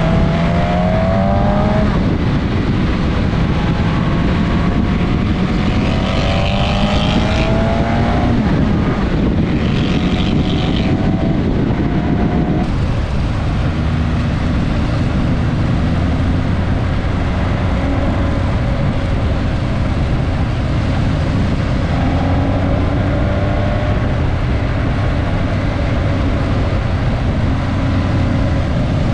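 Suzuki GSX-S1000S Katana's inline-four engine heard onboard over heavy wind noise, rising in pitch through the gears with several shifts in the first dozen seconds, then running at a steadier pitch.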